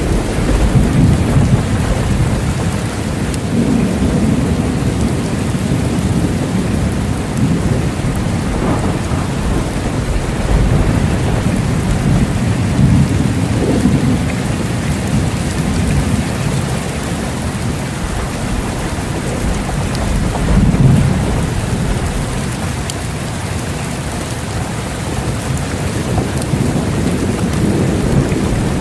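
Steady heavy rain falling, with low rolling thunder rumbling under it and swelling several times, most strongly about two-thirds of the way through.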